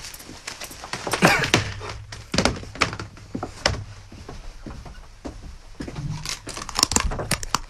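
A hula hoop being spun and dropped, giving a string of irregular knocks and clattering thunks, the loudest about a second in and again near the end. The hoop keeps falling after a handful of turns.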